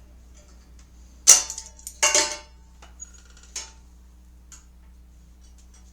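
Metal parts and tools clattering as they are handled on a workbench. There is a loud ringing metallic clank about a second in and a second clatter just after two seconds, then a few light clicks.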